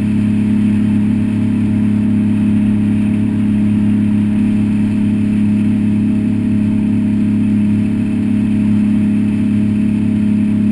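Wooldridge aluminium jet boat's engine running at a steady cruise: a loud, even drone that holds one low pitch throughout.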